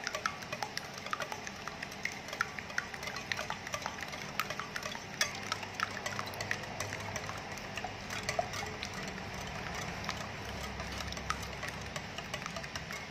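Wire balloon whisk beating eggs and sweetened condensed milk in a glass bowl, with many light, irregular clicks of the wires against the glass over a soft swish of liquid. The eggs are being beaten just loose, not whipped to a foam.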